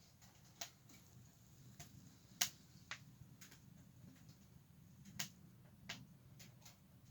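Firewood crackling in a camping wood-burning stove: faint, sharp pops at irregular intervals, the loudest about two and a half seconds in and another just past five seconds.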